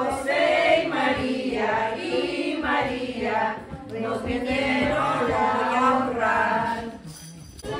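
A group of men and women singing a posada song together, with long held notes; the singing drops away near the end.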